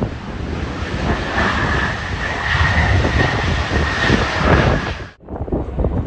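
Jet airliner's engines running with a steady rushing noise and a high whine as it rolls along the runway, with gusty wind buffeting the microphone. About five seconds in the sound cuts off abruptly, and only gusty wind on the microphone follows.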